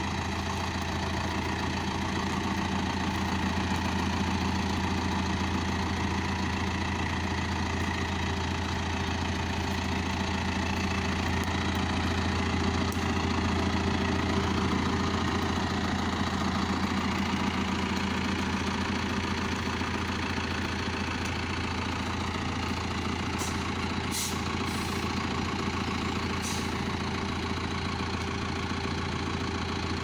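John Deere 6115M tractor's diesel engine running steadily at low revs while the tractor drives slowly over a forest track; the engine note swells a little midway. A few faint, short clicks come in the second half.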